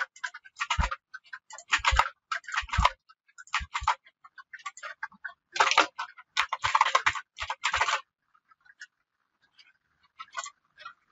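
Computer keyboard typing in short bursts with pauses between them, stopping about eight seconds in.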